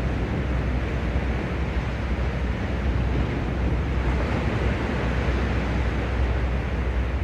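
Sea waves washing on the shore in a steady wash of noise, with wind rumbling on the microphone.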